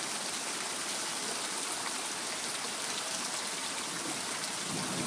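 Heavy rain falling in a steady downpour, with rainwater running.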